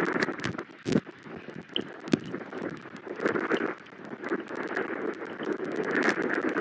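Wind gusting over an outdoor nest-cam microphone, swelling and easing, with scattered sharp clicks and knocks, two of them louder at about one and two seconds in.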